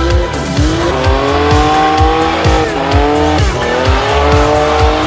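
Car tyres squealing and an engine held at high revs during burnouts, with wavering, slowly rising squeal tones. Music with a heavy bass beat plays underneath.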